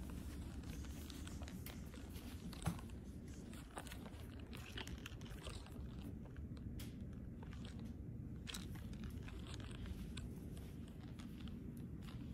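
Low steady room hum with scattered soft clicks and rustles of a handheld camera being moved, and one sharper click about two and a half seconds in.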